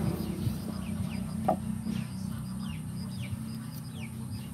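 Chickens: a string of short, falling peeps every half second or so, over a steady low hum, with a single knock about a second and a half in.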